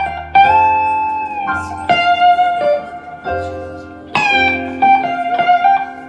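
Electric guitar playing a lead line of single held notes, picked about once a second, several of them bent in pitch, over a low bass note underneath.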